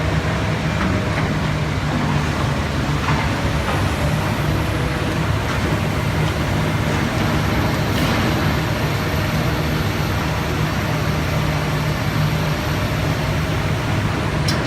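Komatsu PC400 excavator's diesel engine running steadily, with a couple of short knocks about three and eight seconds in.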